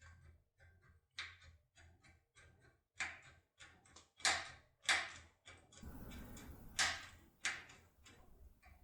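Force tool with a power handle rocked back and forth in a Picard VTX cylinder lock: a run of irregular clicks and creaks, about two or three a second, a few louder ones in the second half, with a low handling rumble from about six seconds in.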